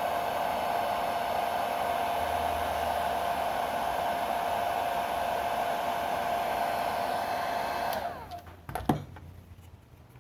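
Handheld hot-air blower running steadily with a whine, heating a rubberized grip to soften it for fitting. About eight seconds in it is switched off and winds down with a falling whine. A few clicks and a sharp knock follow.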